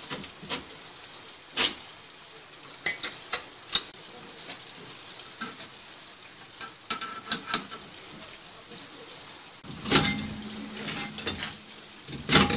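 Hand tools clinking and knocking on metal car parts in irregular short strokes, a few with a sharp metallic ring. About ten seconds in, a louder stretch with a low hum lasting a couple of seconds.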